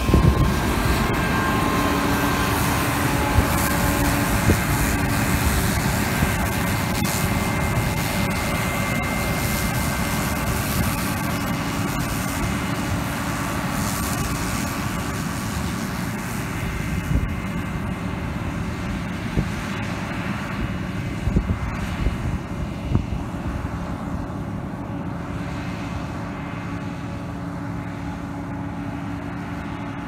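John Deere combine harvester running while cutting wheat: a steady drone of engine and threshing machinery with a few held whining tones. It grows fainter and duller in the second half as the combine moves away.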